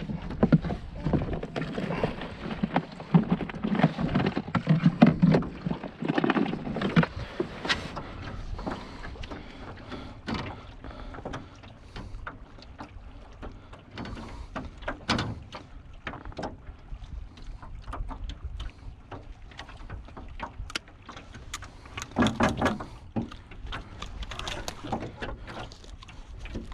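Rustling and knocking as a plastic tackle bin is rummaged through, then scattered sharp clicks and taps of pliers and a landing net while a flounder is unhooked in the boat.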